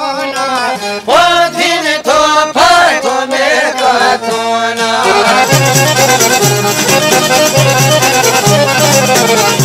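Albanian folk music played on plucked long-necked lutes, the çifteli and the sharki. Gliding melody notes give way about five seconds in to a fuller passage over a steady, repeating low pulse.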